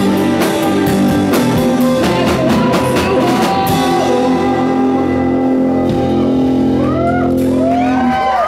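Live rock band of electric guitars, bass and drums playing the song's closing bars: the drumming stops about four seconds in and a held chord rings on, with rising-and-falling pitch glides near the end.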